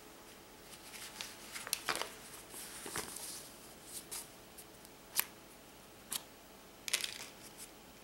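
Stiff paper rustling with a scattering of small clicks and taps as a hand-built circuit mounted on the paper card is picked up and handled, the sharpest clicks about two, five and seven seconds in.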